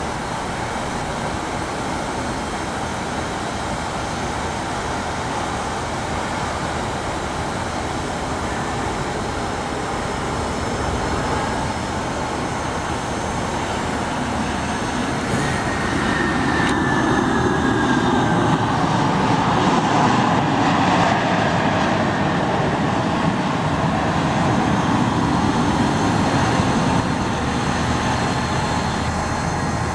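Twin-engine business jet landing: a steady jet engine rumble that grows louder after touchdown about halfway through, with a short falling whine as it begins its rollout.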